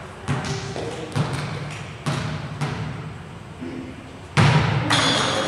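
Volleyball being struck and hitting the floor in an echoing gymnasium: a string of sharp thuds, about one a second, each trailing a reverberant ring off the hall, the loudest about four and a half seconds in.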